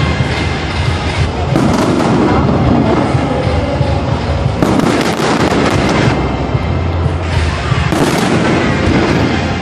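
Aerial fireworks going off in a dense, continuous string of bangs and crackles, with no pause.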